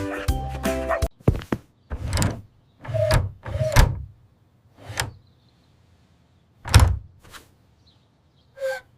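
Animated sound effects of a door being moved and shut: a string of separate knocks and thumps, the loudest and heaviest about seven seconds in.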